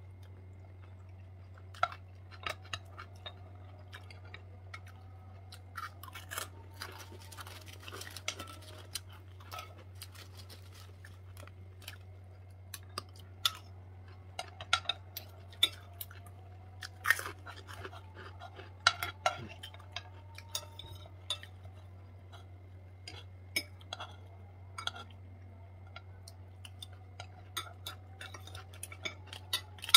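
Metal forks and spoons scraping and clinking against a nonstick frying pan while food is eaten from it, as irregular sharp clinks, with chewing in between. A steady low hum sits underneath.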